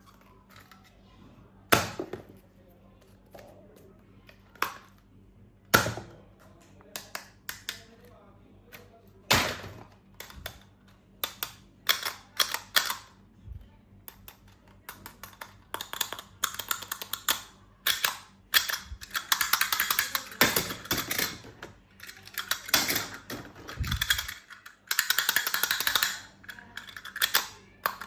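Hard plastic toys and packaging being handled: a few sharp separate clicks and knocks, then from about halfway in a fast run of clicking and crackling, with a dull thump near the end.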